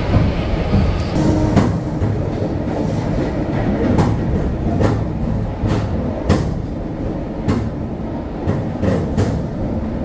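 Passenger train running on the rails: a steady low rumble with irregular sharp clacks of the wheels over the rail joints.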